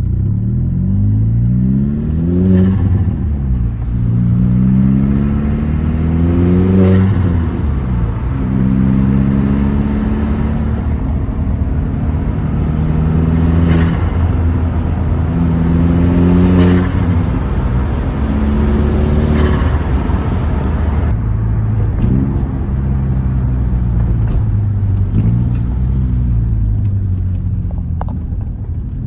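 Turbocharged 1.8T four-cylinder engine of a VW Golf GTI, revved up and let back down about seven times over a steady running note. Each time the throttle closes at the top of a rev, the hybrid diverter valve vents boost with a short airy turbo flutter.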